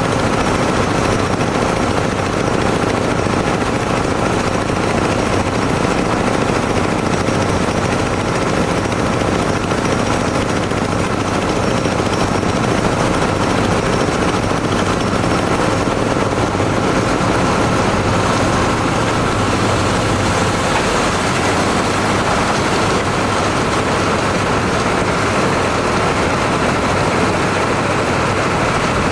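Hole drilling machine running under power: a loud, unbroken mechanical din with a steady hum and a steady whine over it.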